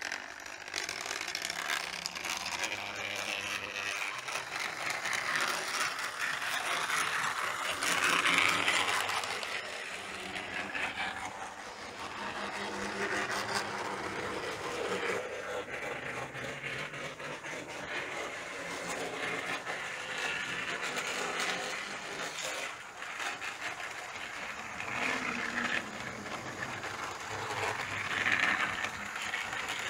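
Tri-ang EM2 OO-gauge model electric locomotive running along the layout's track: a steady mechanical running of its motor and wheels on the rails, growing louder about eight seconds in and again near the end.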